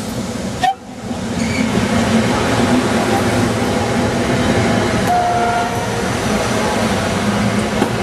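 SEPTA Silverliner electric commuter train passing close at speed: a loud, steady rush of wheels on rails and car bodies going by. A sharp click and a brief cut-out come just under a second in, before the train noise fills in.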